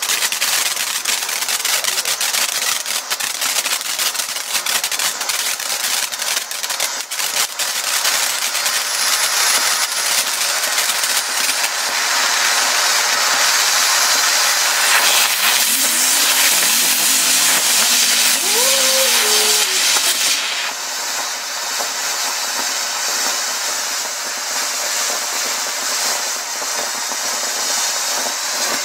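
Ground Bloom Deluxe 200-gram fireworks fountain spraying sparks with a loud, steady hiss, thick with sharp crackles through the first part. About twenty seconds in the hiss drops a little in level and changes tone.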